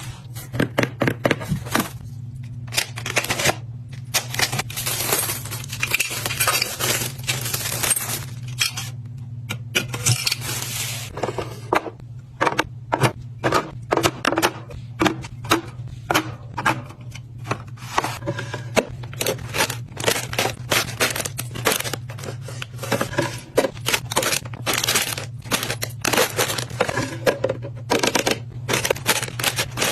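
Groceries being unpacked and sorted by hand: a quick run of clinks, taps and knocks of containers, with bouts of crinkling plastic packaging, over a steady low hum.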